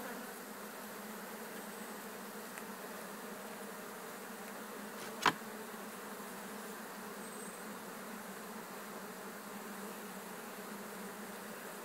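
Honeybees buzzing around an opened hive, a steady dense hum from the colony on the frame. One sharp click about five seconds in.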